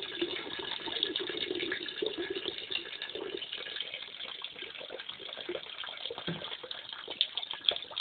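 Steaming hot water pouring in a steady stream from the outlet pipe of a wood-fired boiler water heater into a steel bucket, splashing as it fills.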